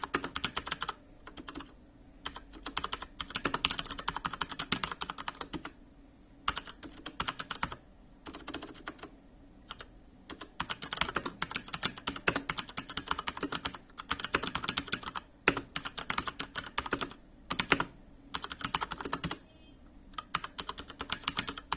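HP Omen Encoder mechanical keyboard with Cherry MX Brown switches being typed on, fast runs of key clicks and clacks in bursts with short pauses between them.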